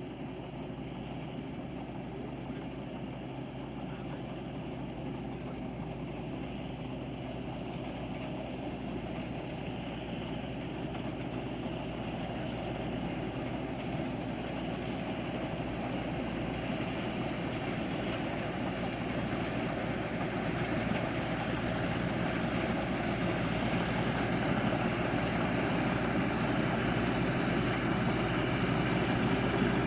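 Engine of a rice-harvesting machine running steadily, growing gradually louder.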